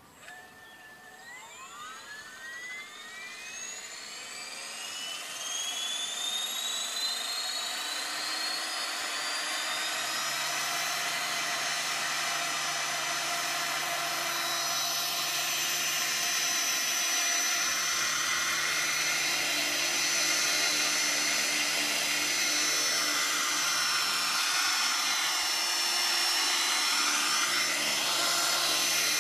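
Large radio-controlled model helicopter spooling up: a whine that rises in pitch and loudness over about the first ten seconds, then holds steady at rotor speed.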